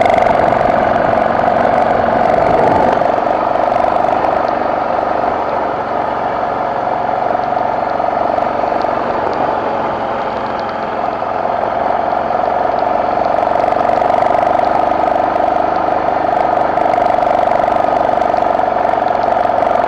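BMW F650GS motorcycle engine running steadily under load on an uphill off-road climb, easing off a little in the middle and then picking back up.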